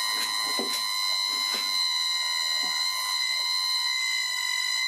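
Electric motor fed by a VFD at 10 Hz, giving a steady high-pitched whine with overtones and a few faint ticks, while the lathe's step pulley is gripped by hand to try to stall it.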